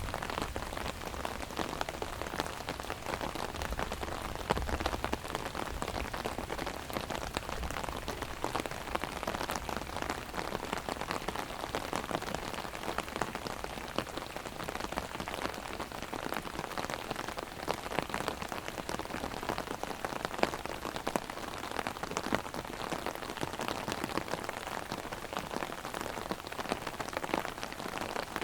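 Heavy rain drumming on an open umbrella overhead: a steady dense patter of separate drop hits.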